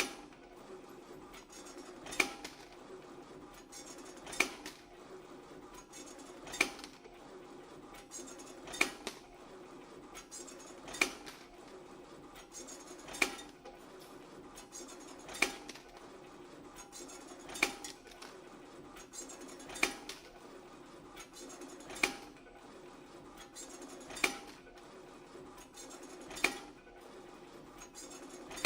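YHM FMB-1 CNC wire bending machine running a repeating hook-forming cycle: a steady mechanical hum with a sharp metallic clack about every two seconds, one per cycle.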